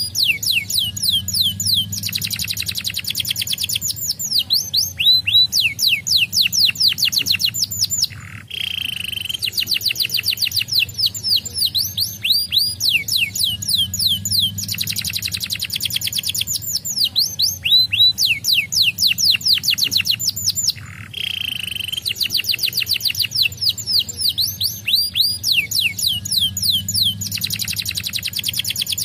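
Domestic canary singing: long rolling trills of rapid falling notes, broken twice by a short held whistle. The same song phrase comes round again about every twelve seconds.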